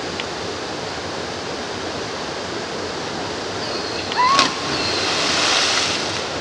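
Steady rush of a small waterfall pouring into a rock pool. About four seconds in there is a short high-pitched cry and a sharp slap as a person plunges into the pool, followed by a burst of splashing water that swells and dies away.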